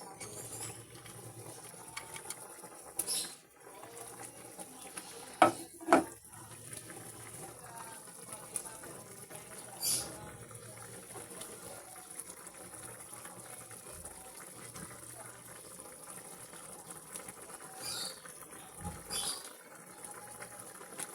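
Liquid simmering in a cooking pot, with two sharp knocks about five and six seconds in.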